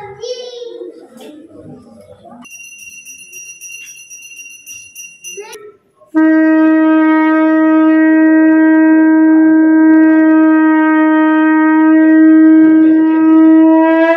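A conch shell (shankh) is blown in one long, loud, steady note that starts about six seconds in and lasts about eight seconds. Before it, a small bell rings with a high steady tone for about three seconds.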